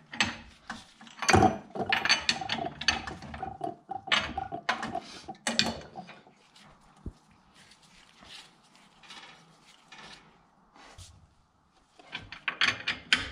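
Irregular metal clanks and knocks of tools and machine handles being handled at a milling machine, busiest in the first few seconds and again near the end, with a thin whine held for a few seconds near the start.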